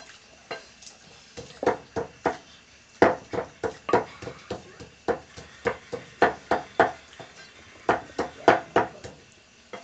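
Wet squelching knocks from pounded rice-field crabs being squeezed and mashed by hand with water in an earthenware mortar to draw out the crab juice. The knocks come irregularly, about one to two a second, sometimes in quick clusters.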